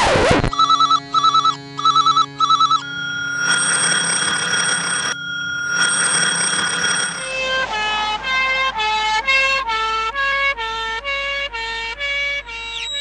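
Electronic alarm and siren tones that switch between patterns. A brief loud burst of noise opens it, followed by four groups of short paired beeps like a telephone ring, then a steady tone with hiss that cuts out briefly, then a fast stepping warble alternating between high and low pitches.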